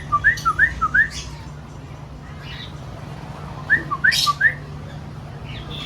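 Whistling around a pair of cockatiels: two quick runs of short rising whistled notes, alternating between a lower and a higher note, with a few brief high bird chirps and squawks. A steady low hum sits underneath.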